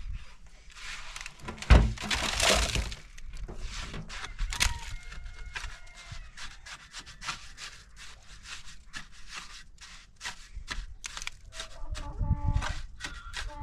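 Mason's trowel scraping and tapping mortar along the top of a concrete-block wall, with a heavy thunk about two seconds in. Music comes in near the end.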